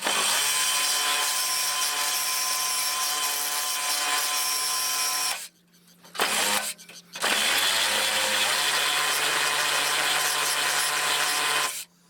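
Hand-held power tool running in two long runs of about five seconds each, with a short burst between them.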